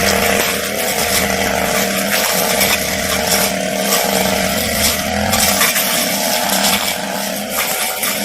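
Petrol brush cutter running steadily at high revs, its blade cutting through grass and undergrowth with a dense, crackling hiss.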